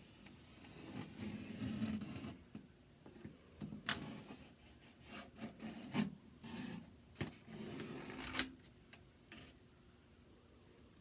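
Pencil scratching along a thin wooden board as it traces around a drawer's edge, in irregular strokes with a few sharp knocks; it dies down in the last couple of seconds.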